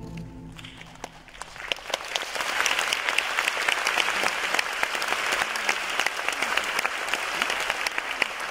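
Audience applauding: clapping swells up over the first couple of seconds as the last of the orchestral music fades out, then carries on steadily.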